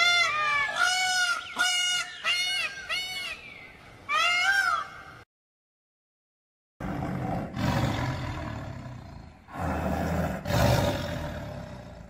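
Indian peafowl (peacock) calling: a quick series of short, arching, nasal calls over the first five seconds. After a brief silence, tigers roar: two long, rough roars, the second one near the end.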